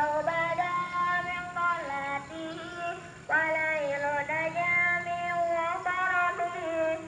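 A high voice singing a melody with long held, wavering notes, with a brief break about three seconds in.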